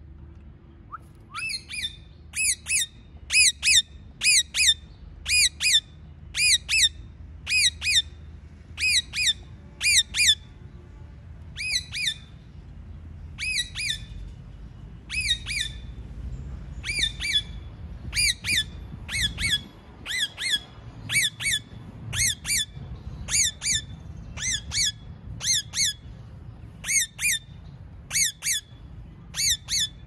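Rose-ringed (Indian ringneck) parakeets giving shrill, repeated screeches: short harsh calls in quick runs of two to four, over and over, after a short pause near the start.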